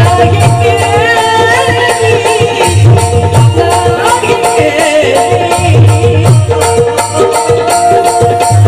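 Music from a Marathi Bhim geet song: sustained steady tones over a regular percussion beat, with a wavering high melody line.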